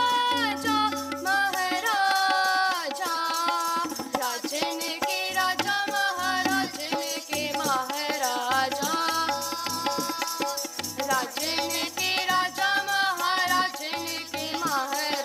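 Sikh shabad kirtan: young voices singing together over a harmonium, with a tabla keeping a steady rhythm of strokes.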